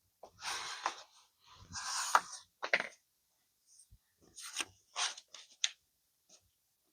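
Paper being handled: several short rubbing and scraping strokes of paper against paper and the work surface, with a pause about three to four seconds in.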